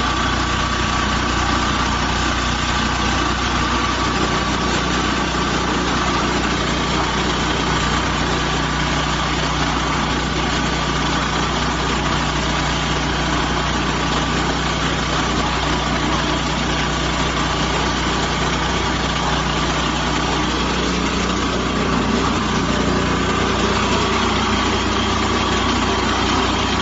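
Diesel engine of a portable concrete mixer running steadily, its low note shifting slightly about three-quarters of the way through.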